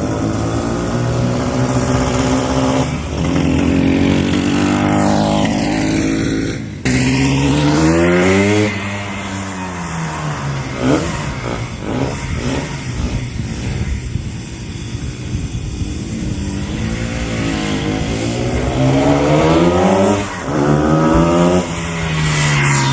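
Harley SS250's single-cylinder two-stroke engine running and being revved, its pitch rising and falling several times, with a sudden break about seven seconds in.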